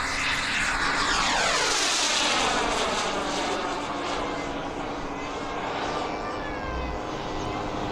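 Radio-controlled model airplane flying low past the field, its engine pitch falling as it goes by, then fading to a steadier, quieter sound as it flies away.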